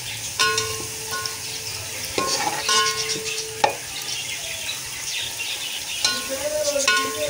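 Sliced onions sizzling in hot oil in a metal pot while a metal spoon stirs and scrapes them, the scraping ringing against the pot, with a few sharp knocks of the spoon on the pot. The onions are frying toward light golden.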